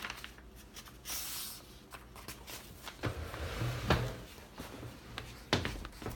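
Handling of a manual portable typewriter and its typed sheet: a short paper rustle about a second in, then scattered clicks and knocks from the machine and handling.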